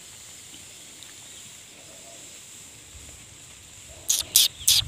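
Faint rural background, then near the end three short, loud hissing 'pish' calls from a person coaxing a hidden cat out of cover.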